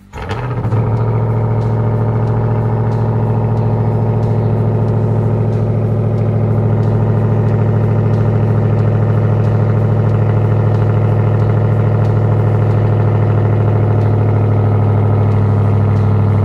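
Ram TRX's supercharged 6.2-litre V8 running at a steady, unchanging pitch. It cuts in abruptly at the start and grows slightly louder toward the end.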